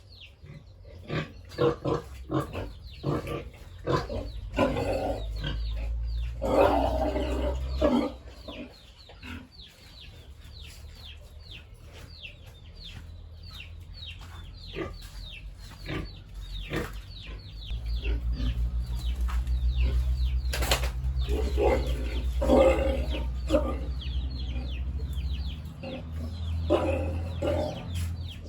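Pigs grunting and squealing in a farm pen, with chickens clucking among them. Many short clicking and scuffling noises run throughout, and a low rumble comes and goes beneath them.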